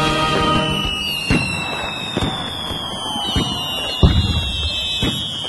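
Fireworks going off: several sharp bangs, the loudest about four seconds in, over high whistles that glide slowly down in pitch. Music fades out in the first second.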